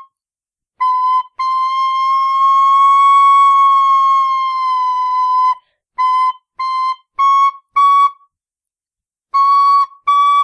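Nickel Killarney tin whistle played as single high notes while its cross-fingered top note is tested. A short note comes first, then a long held note that bends slightly up and sinks back. Four short notes follow, each a little higher, and another note starts near the end.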